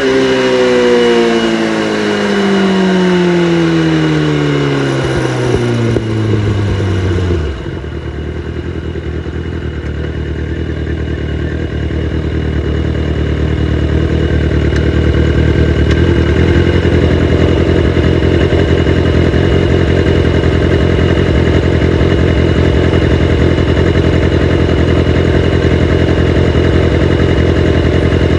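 Kawasaki ZX-6R inline-four engine with its catalytic converters deleted: the revs fall steadily for about seven seconds, then drop suddenly to a steady idle that holds for the rest.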